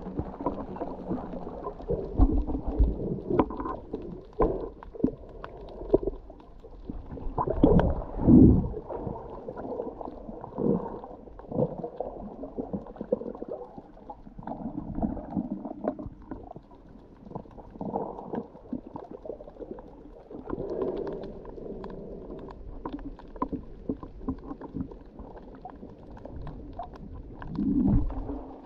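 Muffled underwater sound from a camera held under the water: irregular gurgling and sloshing with small knocks and a low rumble, surging louder about eight seconds in and again near the end.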